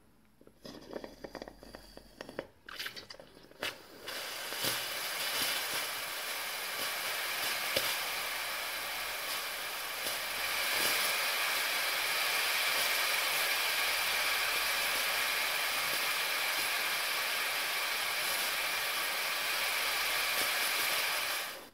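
Steam hissing from the Londinium LR's steam wand, opened to bleed off boiler pressure toward 0.5 bar. It starts with a few seconds of spitting and sputtering, then settles into a steady hiss that grows louder about halfway through and cuts off abruptly when the valve is closed near the end.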